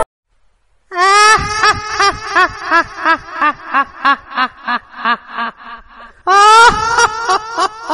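A cartoon ghost's long cackling laugh, a run of 'ha's at about three a second, starting about a second in. A second, louder burst of laughter begins about six seconds in.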